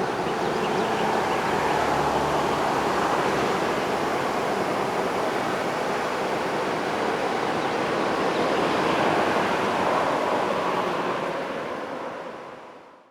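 Road traffic passing at the roadside, a steady rush of tyre and engine noise that swells as vehicles go by, then fades out near the end.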